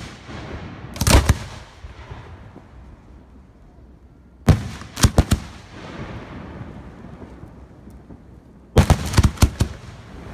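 Aerial firework shells bursting overhead in three clusters of sharp bangs: about a second in, around the middle, and near the end. A low rumble hangs on between the clusters.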